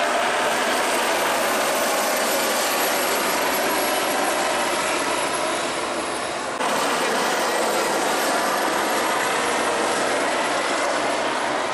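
AgustaWestland AW169 and AW109 Trekker twin-turbine helicopters flying past together: a loud, steady mix of turbine and rotor noise. The sound changes abruptly about halfway through, at an edit.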